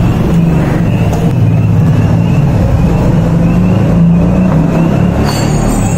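Loud, steady low rumbling drone, with a faint high chirp repeating about twice a second; near the end a brighter hiss comes in.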